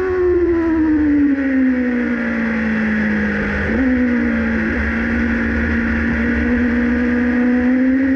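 Formula One car engine, heard close up from the onboard camera. The revs fall as the car slows, hold low and steady at a crawl, and start to rise again near the end.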